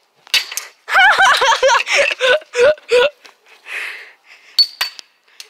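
A boy laughing and yelping without words, in quick wavering bursts. Two sharp clicks follow near the end.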